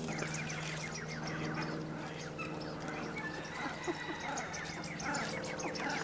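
A crowd of park waterfowl and other birds calling at once: a dense run of short chirps, quacks and calls over a steady low hum.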